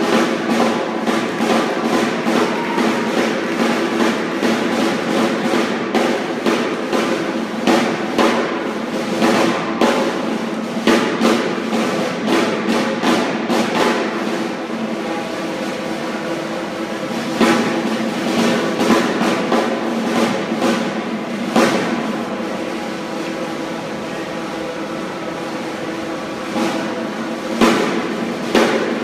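Historical flag-throwers' band playing: snare drums beating strokes and rolls over long held horn notes, as accompaniment to a flag routine. The drumming thins out for a few seconds near the end, then picks up again.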